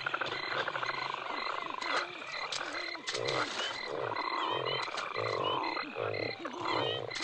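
Recorded bayou ambience: frogs croaking again and again, with high, evenly pulsing chirps going on behind them.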